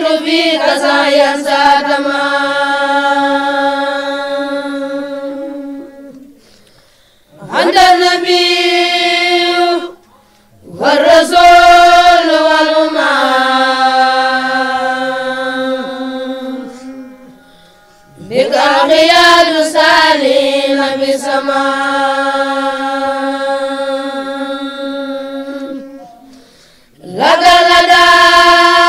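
A single voice chanting Islamic religious recitation in long melodic phrases, each held for several seconds. The pitch rises at the start of each phrase and then holds steady, with short breaks for breath between about five phrases.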